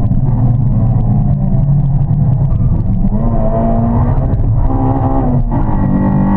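Honda Civic Type R (EP3) four-cylinder VTEC engine revving hard under full throttle on track, the pitch climbing, with the note breaking briefly twice near the end at gear changes.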